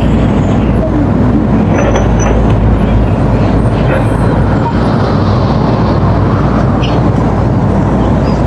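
Hydraulic excavator's diesel engine running steadily with a loud, low rumble.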